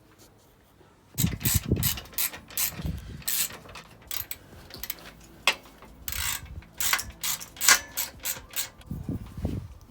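Ratchet wrench clicking in quick, irregular runs as bolts are turned, starting about a second in, with knocks of metal tools and parts among the clicks.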